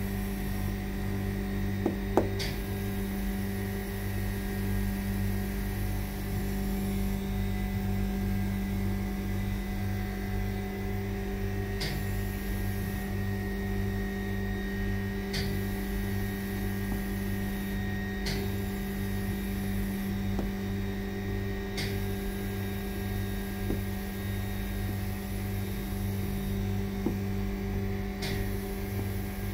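Climate test chamber's machinery running with a steady electrical hum and a fast, even low throb, with a few faint clicks now and then.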